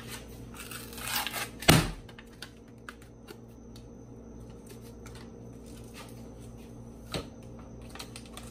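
Paper wrapper being peeled off a tube of refrigerated biscuit dough: quiet rustling and tearing with scattered small clicks. A single loud knock about two seconds in.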